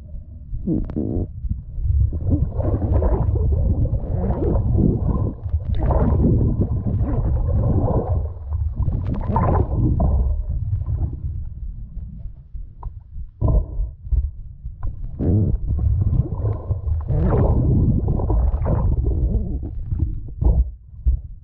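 Muffled underwater rumbling and gurgling of water moving against a submerged camera, in uneven surges with a few brief lulls.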